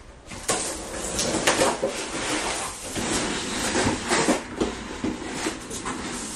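Handling noise from unpacking and setting up a new chest freezer: a steady run of rustling, scraping and knocks from the packing and the freezer cabinet being handled.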